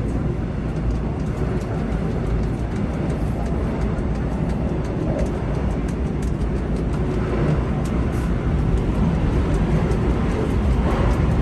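Korail Class 351000 electric multiple unit running at speed between stations: a steady rumble of wheels on rail and running gear, swelling a little about seven seconds in.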